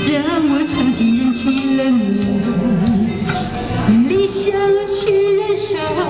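A woman singing a Mandarin pop song into a microphone over a backing track, amplified through a portable busking speaker. Her line sways low with vibrato, then jumps up to a long held higher note about four seconds in.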